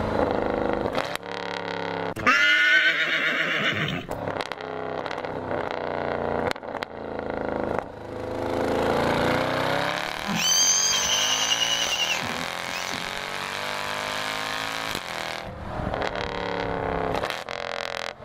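Mercedes-AMG 6.3 V8 engine at the exhaust, revving hard under acceleration, its pitch climbing and dropping back through gear changes. There is a loud brief burst about two seconds in and a short high-pitched whine about ten seconds in.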